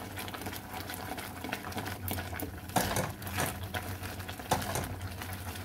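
Thick masala paste bubbling and spluttering in a kadai, with irregular pops, a few louder ones in the middle, over a steady low hum.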